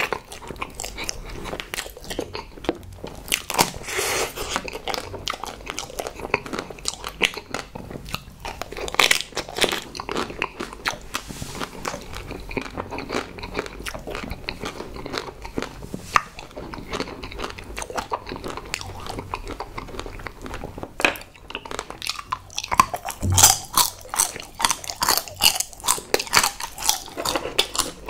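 Close-miked eating sounds of a person biting and chewing chocolate confections: a steady run of sharp mouth clicks and smacks, growing denser and louder about three-quarters of the way through.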